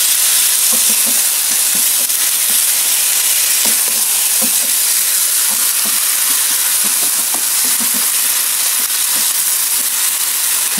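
Sliced beef and onions sizzling steadily in a hot frying pan, with the short scrapes and knocks of a wooden spatula stirring them.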